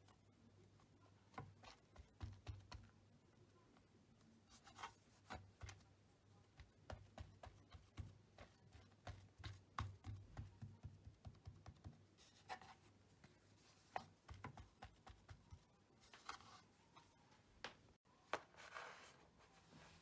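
Hands patting and pressing a filled pide dough flat on a ridged wooden board: many faint, soft taps and thumps over a low hum. Near the end, a brief rustle.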